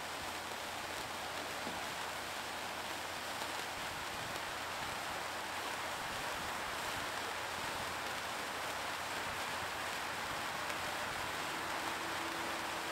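Several wire sparklers burning at once on a spinning hand-held sparkler frame, giving a steady fizzing hiss.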